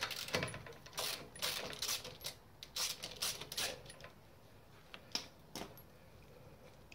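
Hand tools and metal engine parts clicking and clinking as the top end of a 2234cc air-cooled VW engine is taken apart; a run of irregular clicks that thins out after about four seconds, with two last clinks near the end.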